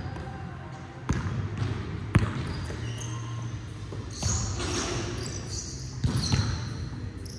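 Basketball bouncing on a hardwood gym floor: a few separate sharp thuds. Sneakers squeak on the court between them.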